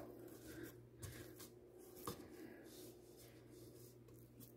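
Near silence, with faint soft rubbing and patting of a hand smoothing oiled yeast dough in a bowl, and one small tap about two seconds in.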